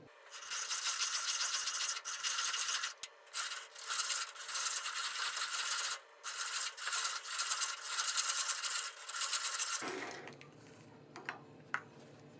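Antique hand-cranked coffee grinder grinding, a dry rasping crunch in several runs with short pauses, stopping about ten seconds in.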